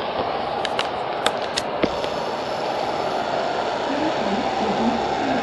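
Heavy rain lashing down, a steady hiss, with a few sharp clicks between about half a second and two seconds in.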